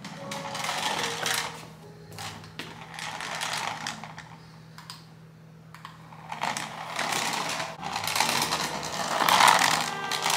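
Battery-powered toy mouse scurrying across a hardwood floor, its small geared motor whirring and the plastic body rattling on the boards. It runs in spells, going quieter for a couple of seconds midway and loudest near the end.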